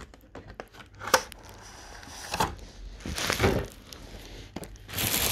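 Plastic packaging being handled and pulled out: crinkling and rustling, with a sharp click about a second in and louder rustles about three seconds in and near the end.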